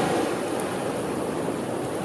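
Sea waves washing on the shore in a lull between breakers: a steady hiss of water that eases off slightly.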